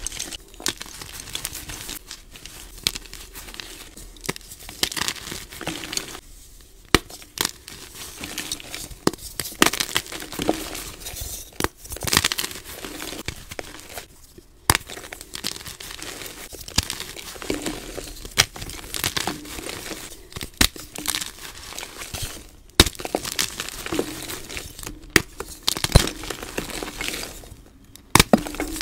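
Fresh plain white gym chalk blocks crushed and crumbled by hand in a bowl of loose chalk powder: soft, dense powdery crunching broken by frequent sharp snaps as pieces crack apart.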